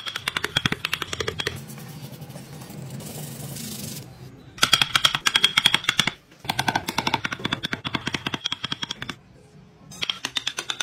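A power carving chisel hammering rapidly into wood, about ten strikes a second, in several runs that stop and restart abruptly.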